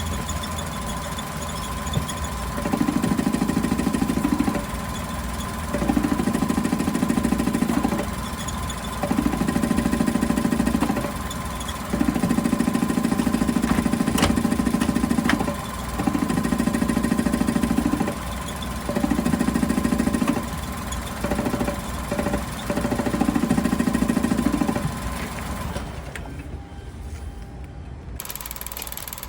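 Suzuki Every engine idling, with a louder low rumble that comes in for about two seconds at a time, seven times with short gaps between: the abnormal noise of a worn crankshaft thrust bearing.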